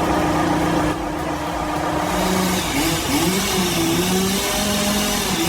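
A machine's engine running, its pitch rising and falling as it is revved.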